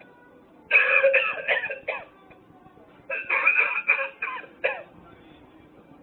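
Novelty coughing ashtray playing its recorded coughing fit through its small speaker: two bouts of hacking coughs, each about a second and a half long, the second starting about three seconds in.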